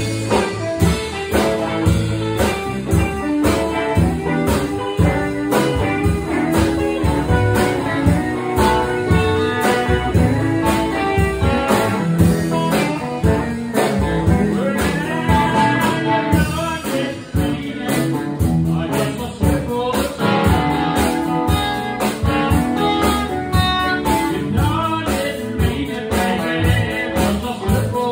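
Live blues band playing a song, with guitars to the fore.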